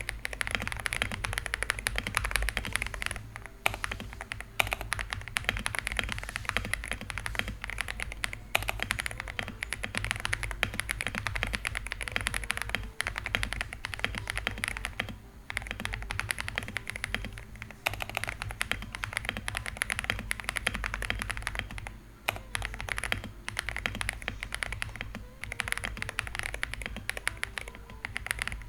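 Typing on an Akko 5098B gasket-mounted mechanical keyboard with factory-lubed switches on a polycarbonate plate: a rapid, continuous run of key clacks with a few short pauses. The bottoming out sounds very whole thanks to the dampeners inside, with a tiny bit of rattle from the plate-mounted stabilizers.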